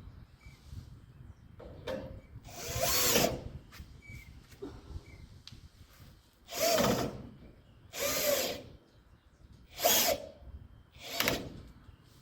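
Power drill-driver running in about five short bursts, each rising and then falling in pitch, as when driving screws back in to reassemble the unit.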